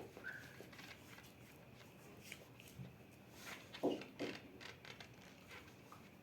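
Quiet handling noises: a few soft knocks and small clicks, the loudest two close together about four seconds in.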